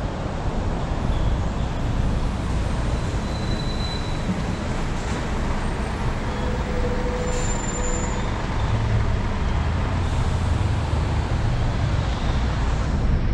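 Traffic waiting at a red light: the steady low rumble of idling vehicle engines, including the van just ahead, with a few brief faint high tones.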